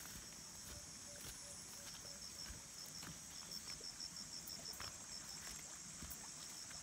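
Faint, steady high-pitched chorus of insects in the vegetation. From about two to five seconds in, a fast run of chirps, about five a second, stands out above it.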